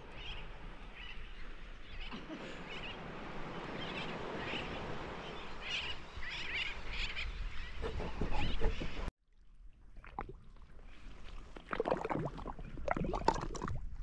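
Outdoor ambience with a steady rushing background and scattered short bird calls. The sound cuts off suddenly about nine seconds in, then returns with irregular knocks.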